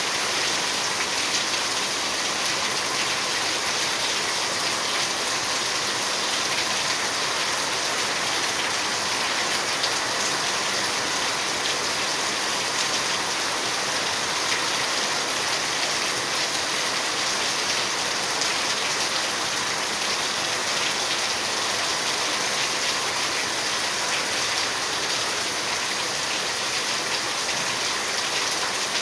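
Steady heavy rain falling and pattering on surfaces, an even hiss dotted with small drop ticks.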